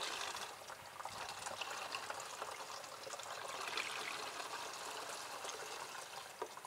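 Red engine coolant trickling steadily out of a tipped plastic filter bowl into a plastic funnel and bottle, draining the dirty liquid left in the filter housing.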